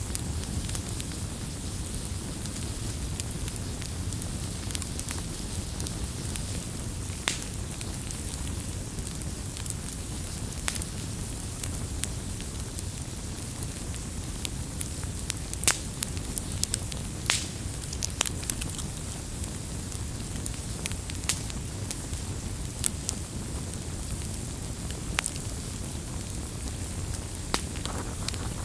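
Burning firewood: a steady low rumble and hiss of the fire with irregular sharp pops and crackles.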